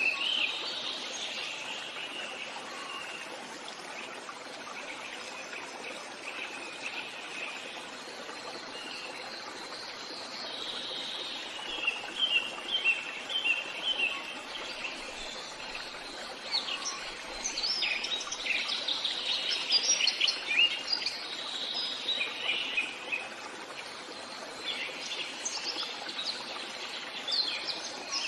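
Forest birdsong: several birds chirping and trilling over a steady soft hiss, the singing growing busier partway through and in the second half.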